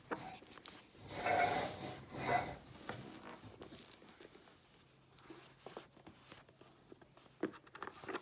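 Hands rubbing and picking at the wrapping of a boxed tarot deck, with scattered small clicks and crinkles. The loudest stretch of rubbing comes a second or two in.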